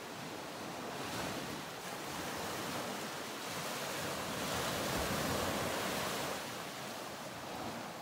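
Ocean surf washing ashore: a wave surges and builds over several seconds, then ebbs away, with a smaller swell near the end.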